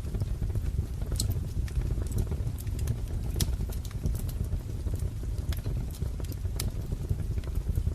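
Wood fire crackling: irregular sharp pops and snaps over a steady low rumble of burning firewood.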